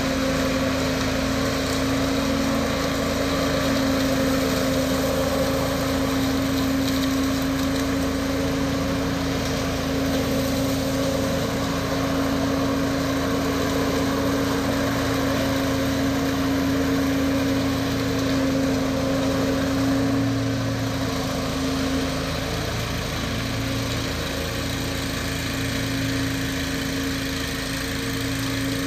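Zero-turn mower with a rear leaf bagger running steadily at working speed as it mows and sucks up fallen leaves, a little quieter over the last several seconds.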